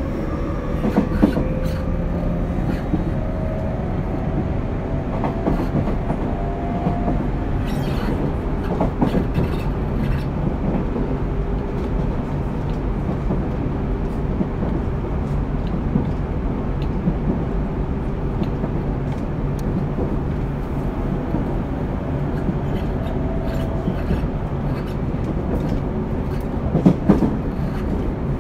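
Interior running sound of a Tobu 30000 series electric train's motor car. The motor whine rises in pitch over the first several seconds as the train gathers speed, over a steady wheel-on-rail rumble. Scattered rail clacks come through, with a cluster of louder knocks near the end.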